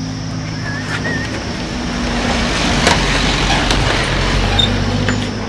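A motor vehicle engine running, growing louder toward the middle and then easing off.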